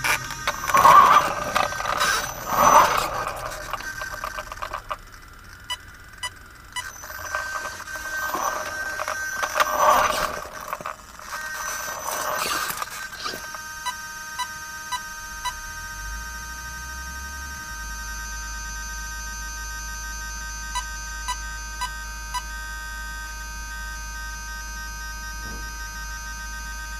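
Small RC inspection rover driving over crawlspace gravel: motor whine with loud scraping bursts in the first half. After that, a steady high whine with short runs of small clicks.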